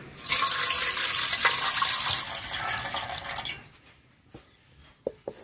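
Water splashing and running as soaked yellow peas are washed by hand in a steel bowl, for about three seconds before it stops. A few faint crackles follow near the end, from a wood fire in a clay stove.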